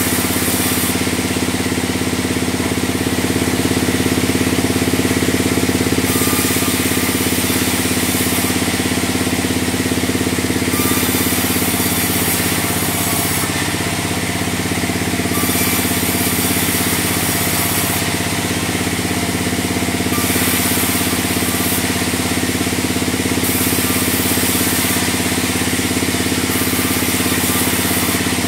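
Large sawmill band saw running with a steady machine hum, its blade hissing through timber in repeated cuts a few seconds apart as logs are fed through.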